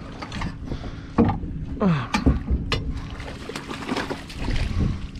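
Hooked bluefish thrashing and splashing at the surface beside the boat as it is reeled in toward the landing net, with a few sharp knocks in the first half.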